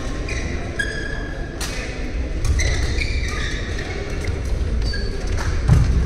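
Badminton rally in a large sports hall: court shoes squeaking sharply on the court floor, with a few sharp racket-on-shuttlecock hits ringing in the hall.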